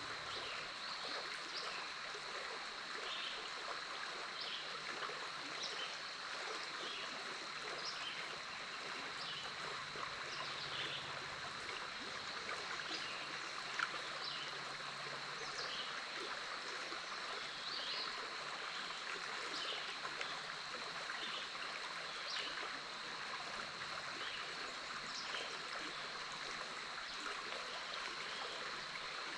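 Big Otter River flowing: a steady rush of water. Above it sit a steady high-pitched tone and short high chirps repeating about once a second, with one sharp tick about halfway through.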